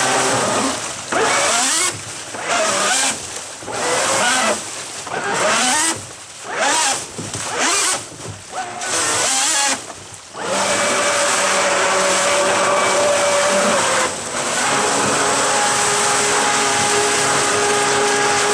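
Electric jet-drive unit for a surfboard, a brushless motor on a budget ESC, run up in a test tub. Its whine rises and falls as the throttle is blipped on and off many times, then holds steady from about halfway, over loud churning, frothing water. The tub is too small, so the jet sucks in air and runs rough.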